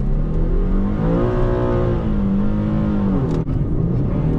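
Tuned Infiniti G37S's 3.7-litre VQ37 V6 pulling hard under acceleration, heard from inside the cabin, its pitch climbing. There is a brief break about three and a half seconds in as it shifts up, and then it climbs again.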